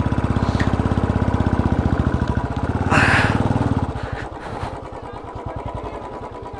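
Motorcycle engine running with a rapid, even pulse. It is loud for about four seconds, then drops to a softer note as the throttle eases, with a brief hiss about three seconds in.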